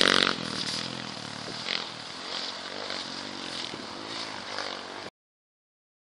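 Small dirt bike engine revving as it rides away. It is loud at first, then fades, rising and falling in pitch with the throttle, and cuts off suddenly about five seconds in.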